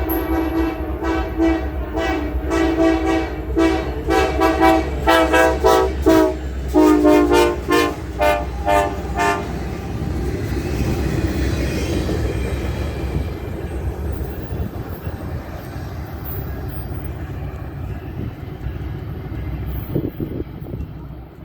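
Train horn sounding a chord in a rapid string of short blasts, a railfan 'horn show', for about the first nine seconds. The blasts get quicker and choppier partway through. After that the train's steady low rumble runs on as it passes.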